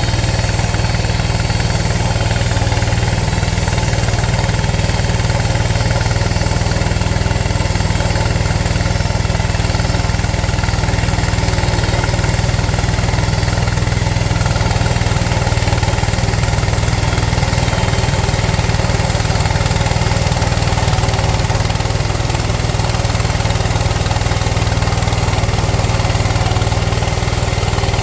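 Engine of a Frontier portable bandsaw sawmill running steadily at a constant speed.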